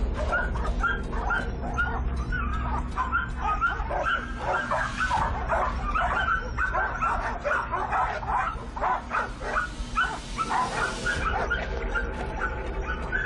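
Dogs barking and whining in a rapid series of short, high calls.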